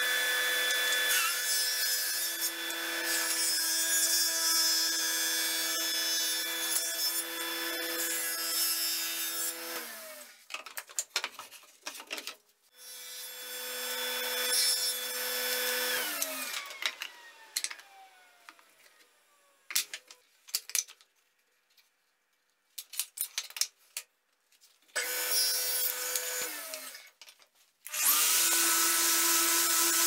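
Table saw running and ripping larch board, a steady motor hum under the cutting noise. It stops, starts again, and winds down with a falling pitch about halfway through. Knocks and clicks follow, then a short run, and a different steady, hissing machine sound starts near the end.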